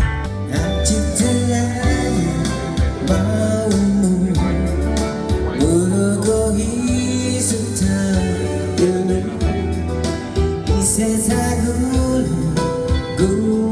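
Background music: a song with guitar, bass and a steady beat, carrying a sung melody line.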